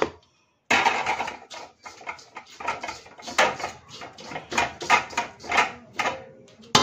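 Metal serving spoon scraping and knocking against a steel cooking pot in a string of quick, uneven strokes as cooked rice is tipped out and spread in a layer.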